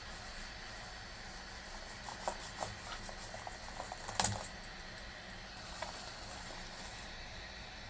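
A few light clicks and taps, the loudest a little past four seconds in, over a faint steady hiss.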